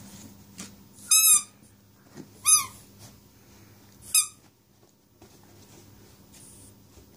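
Yorkshire terrier giving three short, high-pitched yips about a second and a half apart, each rising and falling slightly in pitch.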